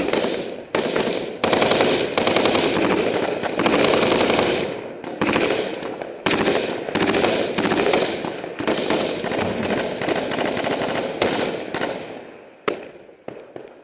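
Machine gun firing long bursts of rapid automatic fire close to the microphone, with short breaks between bursts. Near the end the firing thins out to a few single shots.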